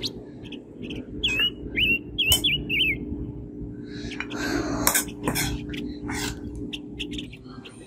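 Metal spoon clinking and scraping in a metal wok as food is scooped up and eaten. About a second in, a small bird chirps a quick series of high notes that dip and rise.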